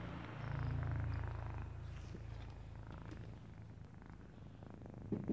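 Domestic cat purring, a low steady rumble. Just before the end a louder, pulsing purr begins at about five beats a second.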